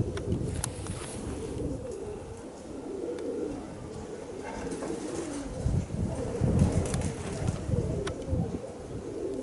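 Domestic pigeons cooing, with strong wind gusts rumbling on the microphone, heaviest for about three seconds past the middle.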